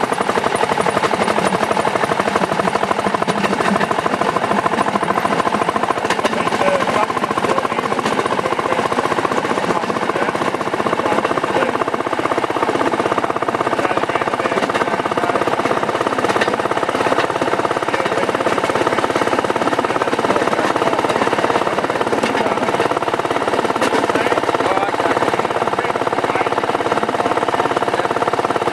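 Rail section car (speeder) running steadily along narrow-gauge track: a small engine's fast, even clatter mixed with the wheels rattling over the rails.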